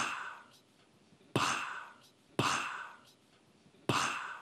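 A man's breathy "pssh" mouth sound blown into a handheld microphone, repeated four times, each sharp at the start and fading over about half a second, imitating a spurt.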